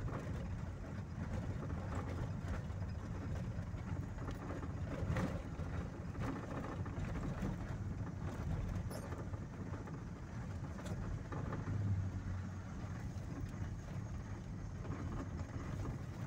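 Steady engine and road noise of a moving vehicle, heard from inside the cabin.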